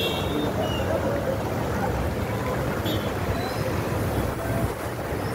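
Steady rushing noise with a low rumble: flowing floodwater and wind buffeting the phone's microphone.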